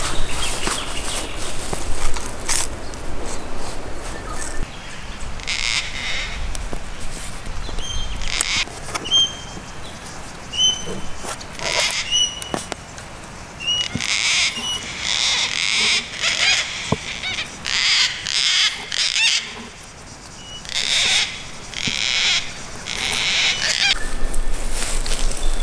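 Birds calling in forest: a repeated short whistled chirp with a quick upturn, and clusters of harsher, noisier calls about halfway through and again near the end.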